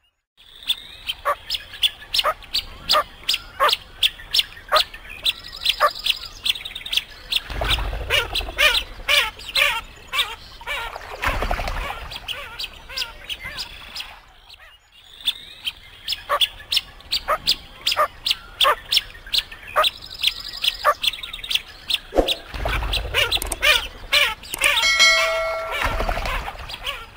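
Teal calling: a dense run of high, rapid peeps and chirps with a couple of low rumbles, the same stretch of calls playing through twice. A short bell-like chime sounds near the end.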